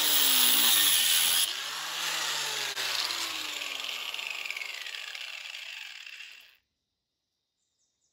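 Corded angle grinder cutting through a car radiator's core. About a second and a half in it comes off the cut and winds down with a falling whine over several seconds, then the sound cuts off abruptly.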